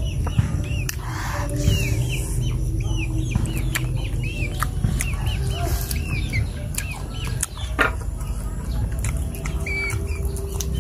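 A bird chirping over and over, short high arching notes about one or two a second, over a steady low rumble with occasional sharp clicks.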